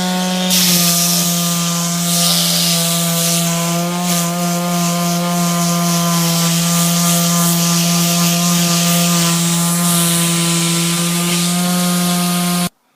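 Small Black & Decker electric hand sander with a new velcro sanding pad, running at a steady speed with a hiss as it sands an oak table top. It comes up to speed at the very start and cuts off suddenly near the end.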